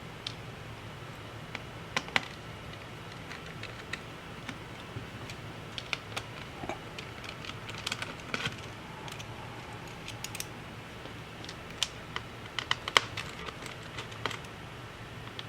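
Scattered light clicks and taps of hand tools and small parts on a laptop being taken apart by hand, over a steady low hum.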